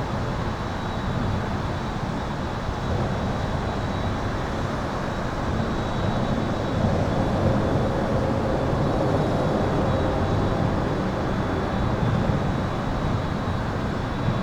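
Highway traffic heard from under a concrete overpass: a continuous rumble of engines and tyres that swells a little midway, with a faint, steady, high-pitched buzz running over it.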